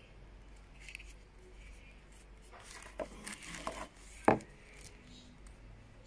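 Tissue paper rustling and crinkling while a small plastic alarm-clock speaker is handled, with a few light clicks, then one sharp knock, the loudest sound, as the unit is set down on the desk.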